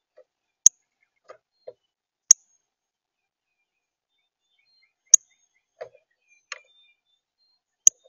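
Male northern cardinal pecking seed on a plastic feeder tray close to the microphone: four loud, sharp clicks at uneven gaps of one to three seconds, with softer taps and knocks between them.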